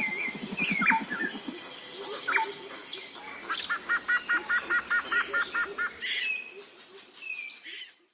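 Woodland birdsong: several songbirds chirping and whistling, with one bird repeating a two-part note about five times a second for a couple of seconds mid-way. A low rapid pulsing sounds in the first second or so, and the chorus fades out near the end.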